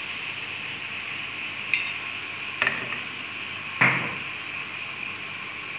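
Kitchenware clinking and knocking: three sharp knocks about a second apart, the last the loudest with a short ring, over a steady high hiss.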